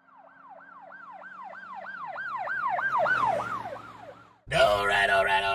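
Emergency-vehicle siren on a fast yelp, about three sweeps a second. It grows louder, then fades with its pitch sinking, and is cut off sharply about four and a half seconds in.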